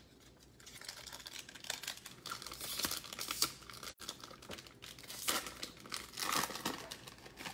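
Foil wrapper of a Score football card pack crinkling and crackling as it is torn open by hand.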